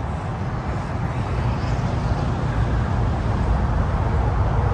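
Steady noise of sleet falling, with a heavy, even rumble underneath and no breaks.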